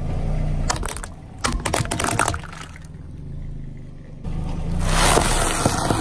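Car tyre rolling over a row of hollow plastic stacking cups, splitting them in a quick run of sharp cracks and snaps between about one and two and a half seconds in, over the steady hum of the car's engine. Near the end a louder, hissing crunch comes as a tyre rolls onto a bag of puffed candy.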